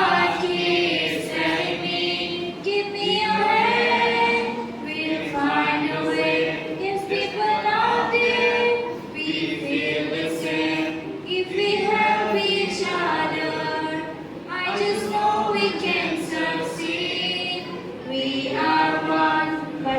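A group of students singing a song together as a choir, in sung phrases a few seconds long.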